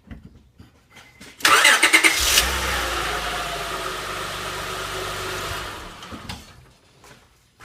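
2005 Honda Pilot's V6 engine cranked by the starter for about a second, catching and running steadily, then stopping about four seconds later. The start shows the newly replaced neutral safety switch now lets the starter crank.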